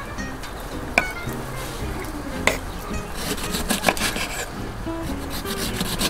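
Knife cutting white fish and then slicing a lemon on a wooden cutting board: scraping of the blade with a few sharp knocks as it meets the board. Background music plays throughout.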